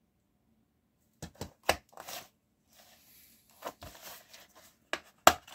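Plastic DVD keep case being handled and opened: a scatter of sharp clicks and taps with brief rustling between them, the loudest snap near the end.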